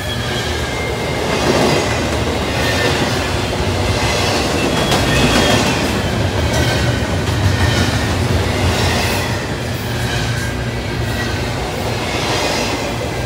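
Double-stack intermodal container well cars rolling past close by: steel wheels rumble and clack steadily on the rails. Thin high-pitched wheel squeals come and go.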